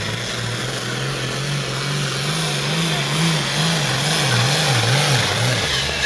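Pulling tractor's diesel engine running flat out as it drags the weight-transfer sled, its pitch wavering up and down about twice a second and growing louder. Its pitch falls sharply near the end.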